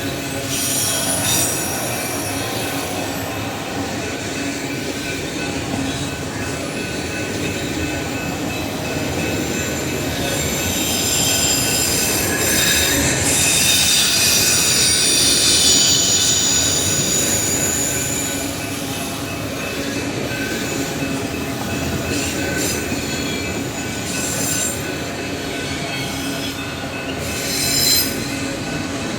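Union Pacific freight train of auto rack cars rolling past, its wheels running on the rails with high-pitched wheel squeal that is strongest about halfway through, plus brief sharper squeals near the start and near the end.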